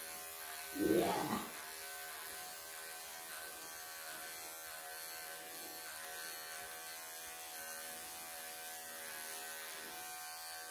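Wahl professional electric pet clippers running with a steady buzz, trimming the long bib fur under a Ragdoll cat's chin.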